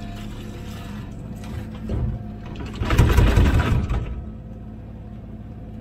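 Komatsu PC16 mini excavator's diesel engine running steadily under hydraulic load. About three seconds in, a bucketful of soil is dumped into a truck bed, a loud rush of falling dirt lasting about a second.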